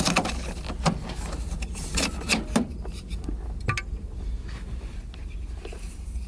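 Scattered plastic clicks, knocks and rubbing as an interior door handle cover is worked into place on a car door panel, over a steady low hum.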